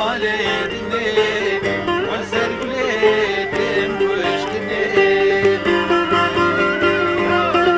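Kurdish folk music played live on long-necked saz lutes with a woodwind melody, plucked strings and wavering melodic lines going on throughout.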